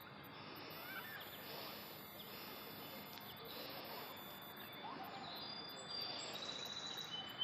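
Faint outdoor ambience with scattered bird chirps, and a few higher whistled bird notes in the second half.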